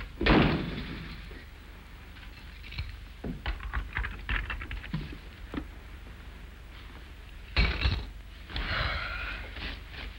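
A wooden door shutting with a sharp thud just after the start, then a few light ticks, and a second sharp thump about seven and a half seconds in.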